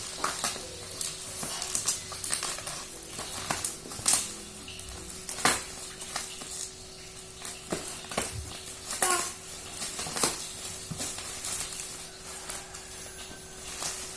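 Laptop box and packaging being handled: irregular taps, clicks and crinkling rustles, with a faint steady hum underneath.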